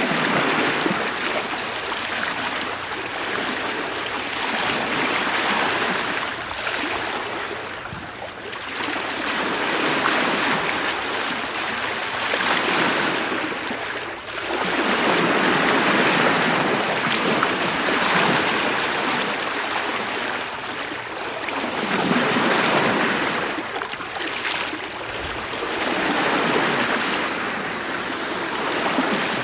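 Bow wave of a three-masted schooner under sail at about 4 knots, heard from the bowsprit: water washing and hissing along the bow, swelling and easing every few seconds as the hull meets each wave.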